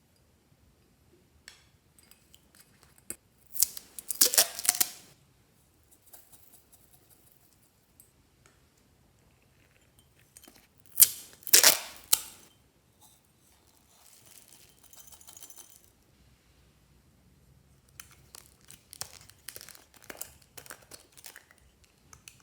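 Slime being worked by hand: squished and stretched in separate crackly, sticky bursts, the loudest about four seconds in and near the middle, then a run of smaller pops and clicks near the end.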